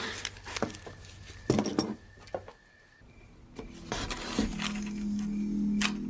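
Light clinks and knocks of small hard objects handled on a table, with a few sharp clicks in the first two and a half seconds. After a short quiet, low sustained music notes come in about four and a half seconds in.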